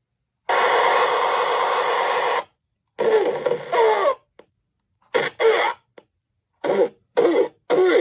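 Hasbro WWF wrestling ring sound effects module playing its recorded clips through its small built-in speaker as its buttons are pressed one after another: a two-second noisy burst, then short shouted voice clips, ending with three quick calls in a row.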